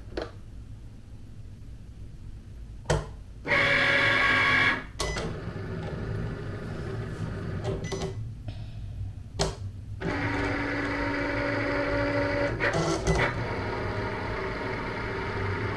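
Cricut Explore Air 2 cutting machine running after Go is pressed: its stepper motors whine as the mat and carriage move, with a loud short run about three and a half seconds in, a steadier longer run from about ten seconds in, and clicks in between.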